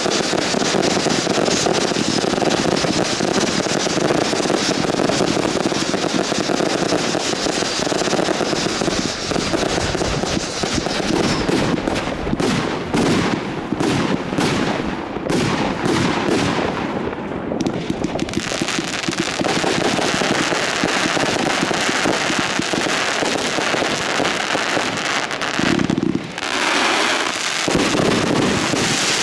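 A dense fireworks barrage: a continuous wash of rapid bangs and crackling, with a run of sharper separate bangs in the middle and a brief dip near the end.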